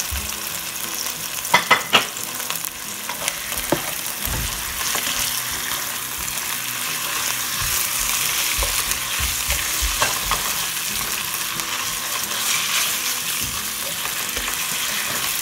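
Cornstarch-coated chicken pieces frying in hot oil with onions and garlic, a steady sizzle as they are stirred and turned with a spatula. A few sharp clicks sound about one and a half to two seconds in, and once more a couple of seconds later.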